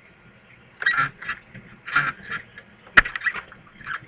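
Handling noise: a few short rustling scrapes and one sharp click about three seconds in, the loudest sound.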